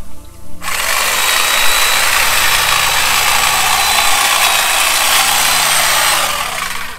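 Corded electric hedge trimmer switching on about half a second in and running steadily as it cuts back an overgrown shrub. It stops near the end.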